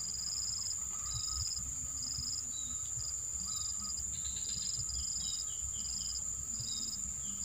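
Insects trilling with a steady high drone, with short high chirps repeating about once a second and a few quick falling notes in the middle.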